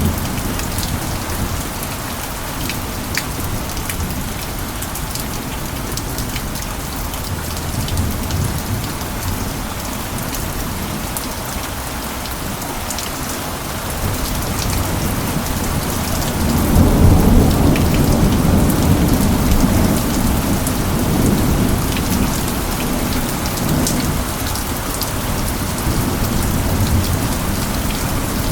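Steady heavy rain with many small drop hits, and a low roll of thunder that swells a little past halfway, is loudest soon after, and slowly fades.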